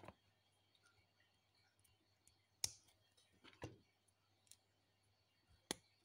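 Lego pieces clicking and knocking as they are handled and pressed together: a few sharp plastic clicks, the loudest about two and a half seconds in and another near the end, over a faint low hum.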